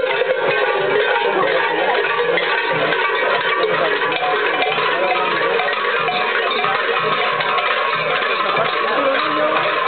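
Many small bells worn by a troupe of dancers jingling steadily as they dance, with music underneath.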